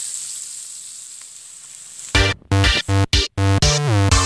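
Tofu strips and chopped onion sizzling in hot oil, a steady hiss that fades over the first two seconds. About two seconds in, electronic music starts abruptly: choppy stop-start chords over a heavy bass.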